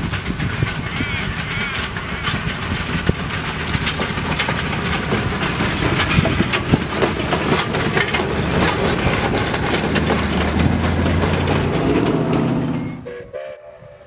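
South Australian Railways T class 4-8-0 steam locomotive passing with its train of carriages, wheels clattering and knocking over the rail joints amid steam noise. The sound drops away sharply about a second before the end.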